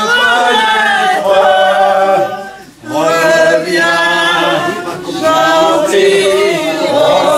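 People singing together, holding long drawn-out notes, with a brief break a little under three seconds in.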